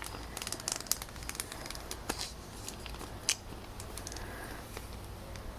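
Faint, scattered crackling and clicking of a plastic bag being handled, with broken statue pieces shifting inside it.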